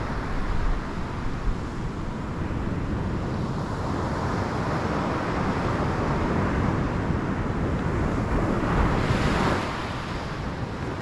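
Surf breaking on a sandy beach, with wind rumbling on the microphone; the wash swells louder for a moment about nine seconds in.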